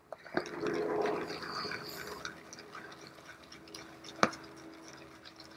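Proraso shaving brush whisking shaving soap lather in a bowl after a little water has been added: wet swishing and crackling, loudest in the first second or two and then softer. A single sharp click comes about four seconds in.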